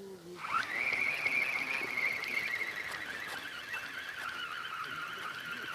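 Feeder spinning reel being cranked to bring in a hooked roach, its gears giving a steady whirring whine that slowly drops in pitch.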